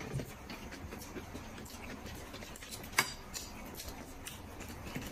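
Quiet tableware sounds at a meal: chopsticks and utensils clicking lightly against plates, with one sharper click about three seconds in.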